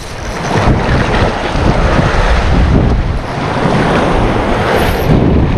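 Wind buffeting the microphone over the wash of waves breaking on the shore, a loud, continuous rushing noise.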